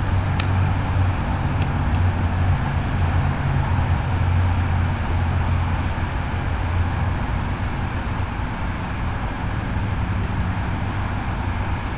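Steady low engine rumble under outdoor background noise, with two faint clicks in the first two seconds.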